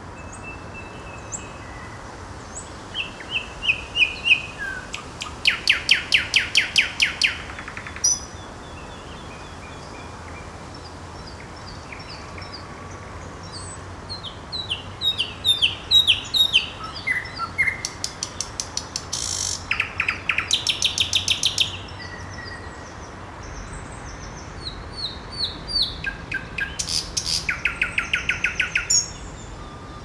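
Thrush nightingale singing: three song phrases separated by pauses. Each phrase is made of short whistled notes that run into a fast, rattling string of repeated notes.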